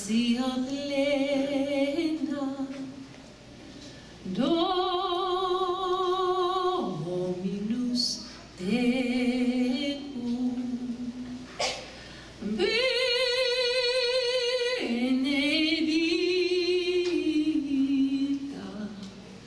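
Women singing unaccompanied into microphones: a slow song of long held notes with vibrato.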